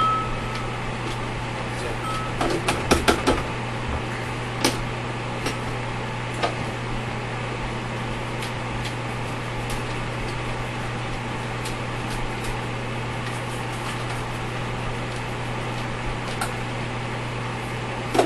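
Small clicks and taps of parts being handled while a clogged coffee grinder is cleaned out, with a short cluster of clicks a few seconds in and single ticks after. A steady low hum runs under them throughout.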